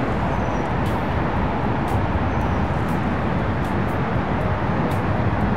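Steady outdoor background noise: a dense, even rumble and hiss with no distinct events.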